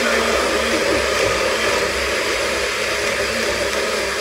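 NutriBullet personal blender running steadily, its motor whirring as it blends a smoothie with ice and frozen fruit in the cup.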